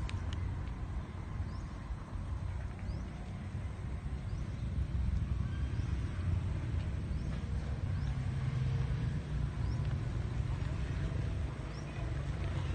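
A low, uneven rumble.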